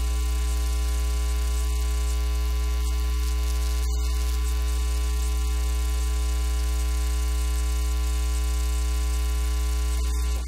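Loud, steady electrical mains hum in the audio feed, a low drone with a buzzing stack of overtones. It cuts off abruptly at the very end.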